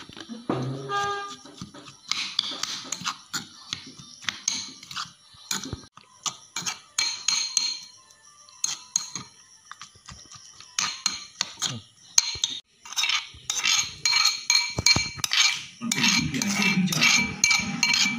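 Steel spoon stirring and scraping a wet chutney in an aluminium bowl: quick runs of clinks and scrapes against the metal, with the bowl ringing after the hits. The clinking is busiest in the last few seconds.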